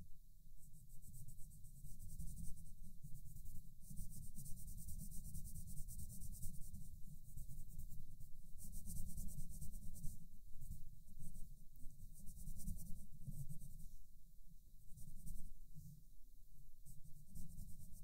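Coloured pencil shading on paper: a steady run of quick, scratchy back-and-forth strokes, with a few short pauses.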